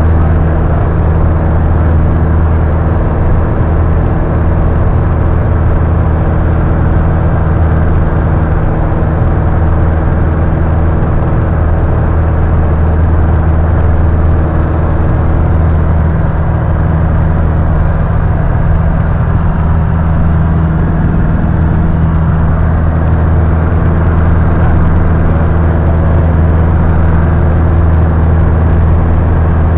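Piston engine and propeller of a high-wing single-engine light aircraft, heard inside the cabin in flight: a loud, steady drone with a deep hum that holds without change.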